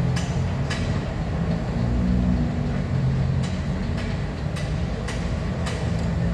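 Heavy mechanical rumble at a metro station, with irregular sharp knocks every second or so.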